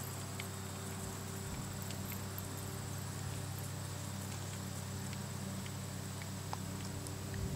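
Soft, irregular hoofbeats of a Tennessee Walking Horse gaiting on grass, under a steady low hum and a faint steady high tone.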